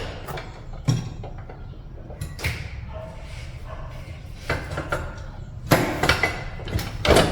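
Scattered clicks and knocks of metal parts and tools being handled in a workshop, with a sharp knock about a second in and a cluster of clatter near the end.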